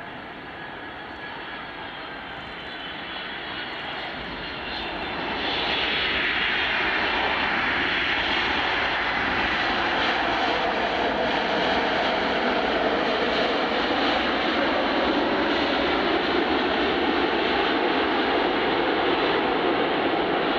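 Boeing 767-300ER freighter's jet engines during landing, with a faint whine as it touches down. About five seconds in the engine noise rises sharply to a loud, steady level as the engines spool up, typical of reverse thrust on the rollout.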